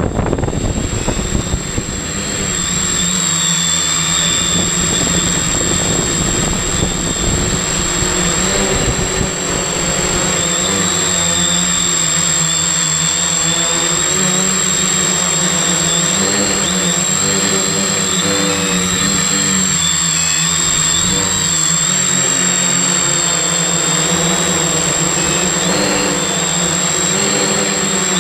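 Multirotor drone's brushless electric motors and propellers buzzing in flight, heard from a camera on the frame; the pitch of the buzz keeps rising and falling with the throttle, over a steady high-pitched whine. In the first couple of seconds, wind buffets the microphone.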